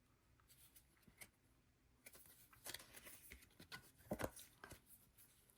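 Faint rustling and a few soft clicks of photo cards being handled and slid against each other, scattered over the middle few seconds.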